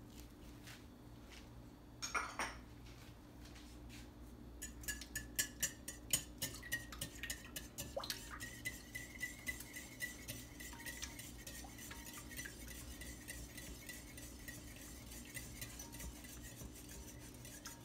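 A metal utensil stirring and beating milk, egg and vanilla in a glass mixing bowl, clinking rapidly and steadily against the glass from about four seconds in. Before that come a few faint knocks and a short clatter about two seconds in.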